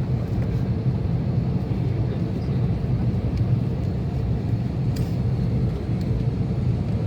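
Steady low rumble inside the cabin of an Airbus A320neo on the ground, with a faint steady hum and a few light clicks.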